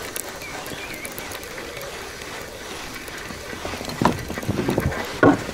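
Spinning reel being cranked to bring in a hooked fish, a steady whirring with rhythmic clicks. A couple of louder short sounds come near the end.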